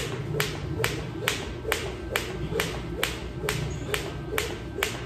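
Sharp clicks in a very even beat, a little over two a second, over a steady low hum.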